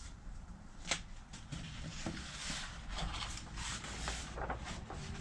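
Large folded paper movie poster being unfolded and handled: repeated paper rustling and crinkling, with a sharp click about a second in.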